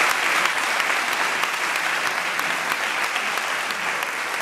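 Audience applauding steadily, the clapping easing off a little toward the end.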